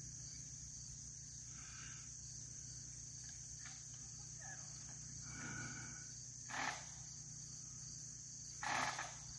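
Steady high-pitched chorus of insects in summer woods. Two short, louder sounds break in, one about two-thirds of the way through and one near the end.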